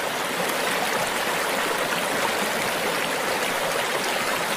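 Muddy floodwater rushing and churning through the arches of a canal bridge: a steady, unbroken rush of turbulent water from a canal running very high.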